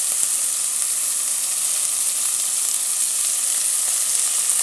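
Green peas and carrots sizzling steadily in hot coconut oil in a cooking pot.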